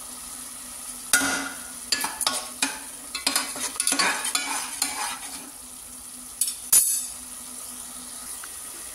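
Onion-tomato paste frying and sizzling in an aluminium pressure cooker, stirred with the salt just added, the utensil scraping across the pan bottom in irregular strokes. The paste is being fried until the oil separates. A sharp knock comes near the seventh second.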